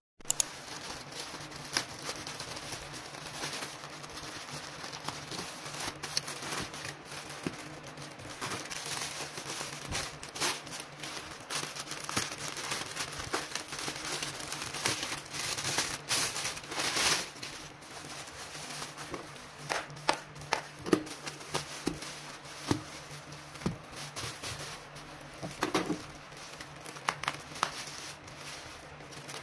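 Plastic mailer bag and bubble wrap crinkling and rustling as hands handle and open a parcel, with scattered sharp clicks and taps.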